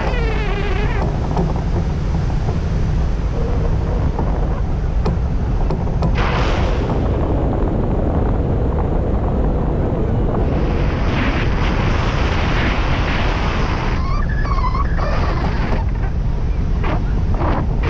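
Wind rushing over the microphone of a hang glider's wing-mounted camera in flight: a steady, loud buffeting rush.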